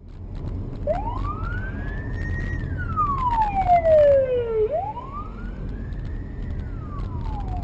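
Police car siren wailing in slow sweeps: it rises in pitch, falls slowly, then rises and starts to fall again, over the low rumble of a car on the move.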